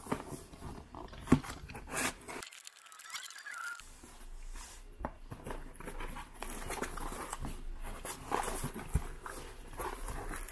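Utility knife slitting the packing tape on a cardboard box, then the cardboard flaps being pulled open and handled, with scattered clicks, scrapes and rustling. There is a short silent break about two and a half seconds in.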